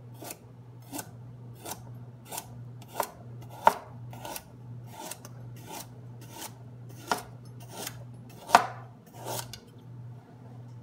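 Kitchen knife slicing a raw carrot into rounds on a plastic cutting board: a run of crisp chopping strokes, about two a second, with a few louder knocks of the blade on the board.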